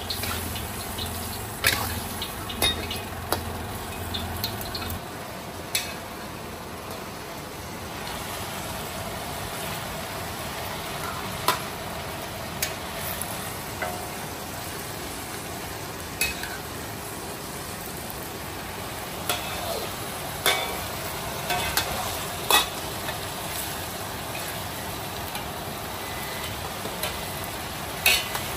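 Stir-frying in a wok: food sizzling steadily while a metal spatula stirs it. Sharp clicks and scrapes of the spatula against the wok come every few seconds.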